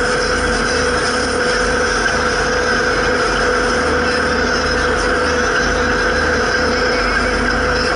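Zetor 7340 tractor's four-cylinder turbo diesel running at a steady speed on the road, heard from inside the cab with a steady whine over the engine noise.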